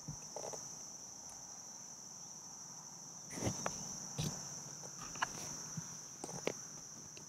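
Steady high-pitched chorus of woodland insects droning without a break. From about halfway in, a few light knocks and rustles of handling close by are heard over it.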